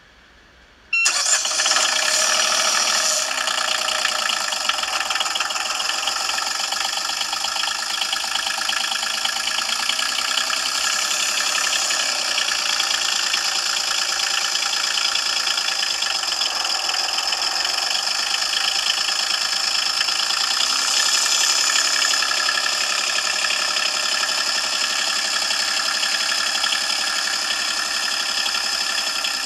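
Volvo Penta D1-20 three-cylinder marine diesel running steadily, coming in suddenly about a second in. It is heard thin, with little low end.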